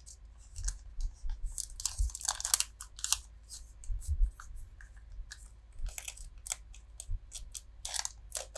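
Foil Pokémon booster pack wrapper crinkling and rustling, with the trading cards inside scraping against it, as the cards are pushed back in and the wrapper is folded down by hand. The sound comes as irregular short scratchy rustles.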